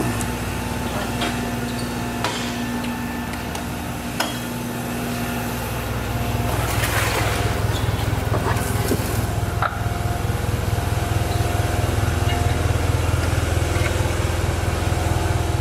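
A motor running steadily with a fast, low pulsing throb that gets a little louder about six seconds in, with a few scattered knocks and clunks over it.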